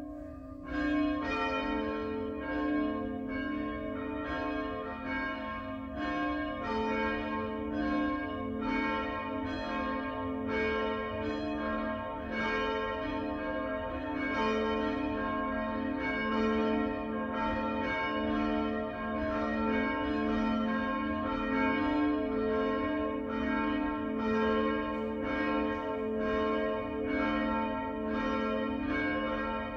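Church bells pealing from the steeple: a steady stream of overlapping strikes with long ringing tones. Another bell joins about a second in.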